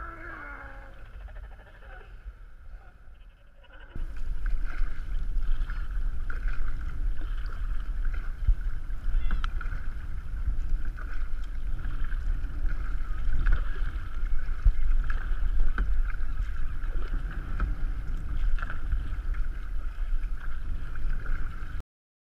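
Steady wind rumble on a GoPro's microphone, with water splashing and lapping as a kayak is paddled. It starts suddenly about four seconds in and cuts off just before the end. Before it there is a quieter stretch, with a few brief wavering calls at the start.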